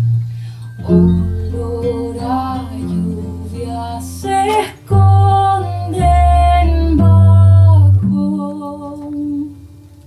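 A woman singing a folk song, accompanied by a classical guitar, a steel-string acoustic guitar and a double bass holding low notes. The music drops to a quieter passage near the end.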